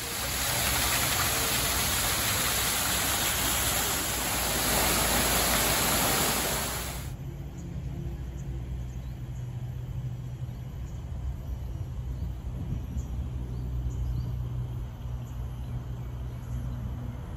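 Outdoor garden ambience: a loud, steady rushing hiss cuts off abruptly about seven seconds in. It gives way to a quieter steady low rumble with faint high chirps scattered through it.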